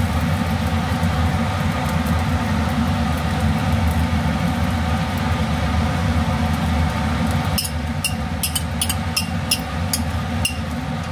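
Steady low hum of a kitchen range hood fan. About seven and a half seconds in, a metal fork starts clinking sharply, roughly twice a second, as beaten eggs are worked into fried rice in a nonstick pan.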